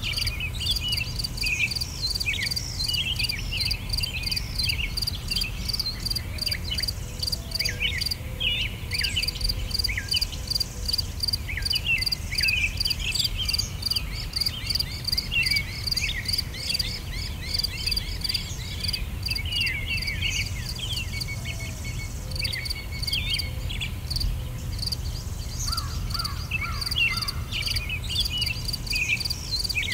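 Insects chirring in a steady, finely pulsing rhythm, with many short chirping calls over it and a low rumble underneath.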